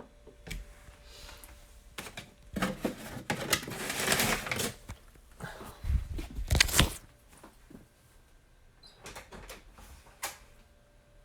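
Rustling and clattering with scattered sharp clicks, loudest a few seconds in, with a heavy thump near the middle.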